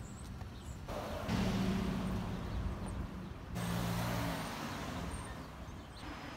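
Cars driving past on a street: a low engine hum with tyre noise that swells about a second in, breaks off abruptly about three and a half seconds in, and is followed by another car's hum that fades toward the end.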